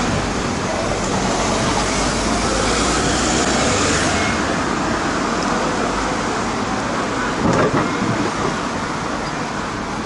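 City street traffic: cars driving past with a steady wash of tyre and engine noise, briefly louder about three quarters of the way through.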